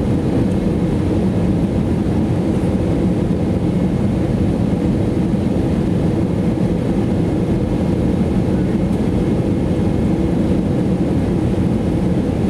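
Steady cabin noise inside an Airbus A320neo on approach: the low, even rumble of its Pratt & Whitney PW1100G geared turbofan engines and the airflow over the fuselage, heard from a window seat over the wing.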